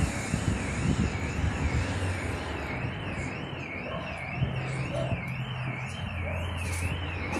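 A warbling electronic alarm, its pitch sweeping up and down about twice a second, like a car alarm, over a low steady hum of street and engine noise.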